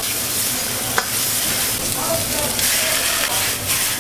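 Vegetables stir-frying in a wok over a high gas flame: a loud, steady sizzle as the food is tossed, with one sharp knock about a second in.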